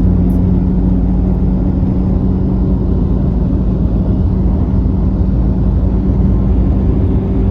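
A car driving at a steady speed: a constant engine drone with road rumble beneath it.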